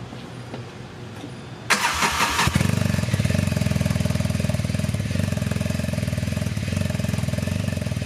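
Side-by-side UTV engine started: a brief loud crank about two seconds in, then the engine catches and settles into a steady idle through its exhaust.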